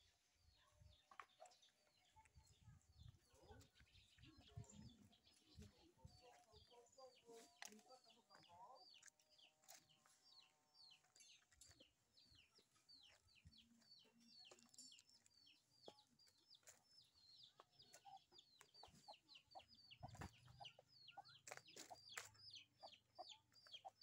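Faint farmyard chickens clucking now and then, over a steady run of quick, high chirps, about three or four a second. A few low thumps come in the first seconds.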